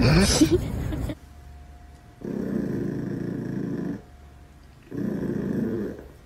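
Small dog growling in long rumbles of about two seconds each, with short pauses between them for breath. The first growl starts about two seconds in, after a brief voice at the very start.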